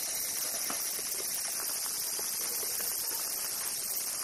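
Steady high-pitched chorus of cicadas that does not let up, with a few faint light taps.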